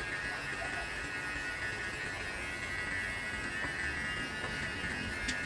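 Xiaomi Enchen Hummingbird electric hair clipper running with a steady, high buzz as it trims hair at the side of the head. A brief click comes near the end.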